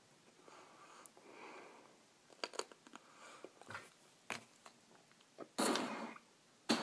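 Faint clicks of sunflower seeds being cracked between the teeth, then a short burst of spitting shells into a plastic bottle spitter near the end.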